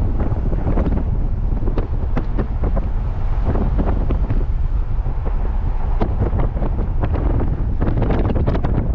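Strong wind buffeting the microphone: a heavy, steady rumble with frequent crackles and pops.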